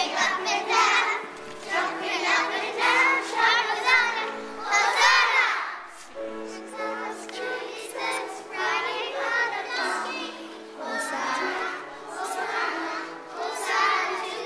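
Young children's choir singing together over an instrumental accompaniment of held notes, louder at first and softer from about halfway through.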